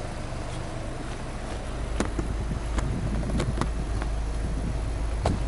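Subaru Legacy 2.0 GT's EJ20 turbocharged flat-four running steadily, heard from behind at the twin exhaust tailpipes as a low, even rumble that grows a little louder about two seconds in. A few sharp clicks sound over it through the middle and near the end.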